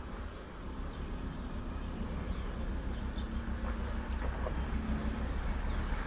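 A steady low rumble with a faint hum in it, under scattered faint, short, high bird chirps.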